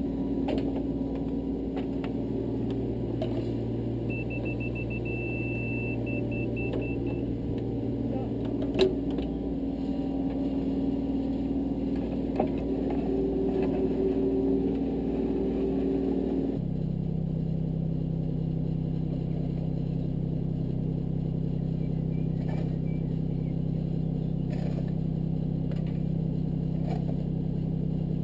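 Mini excavator's diesel engine running steadily as it digs a trench, its note changing abruptly about two-thirds of the way through. A run of short electronic beeps sounds about four seconds in, and two sharp knocks come around the middle.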